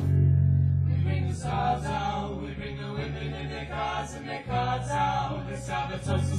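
Band music cutting in suddenly: deep, sustained bass notes changing about every second and a half under several voices singing together.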